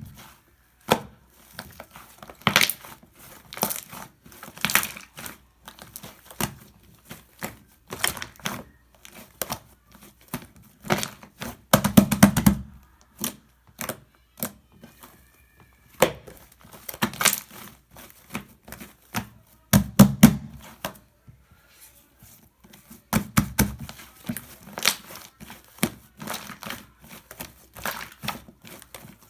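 Hands squishing and pressing shaving foam, with irregular crackling and crinkling and occasional heavier squelches.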